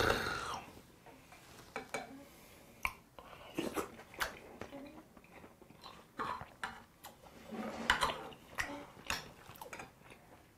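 A metal spoon clinks and scrapes in an earthenware bowl of ox-blood soup, with chewing between the scattered clicks. It opens with the tail of a loud breathy exhale.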